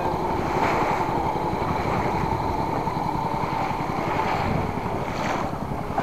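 Small wooden fishing boat's engine running steadily under way, with water rushing along the hull and wind on the microphone.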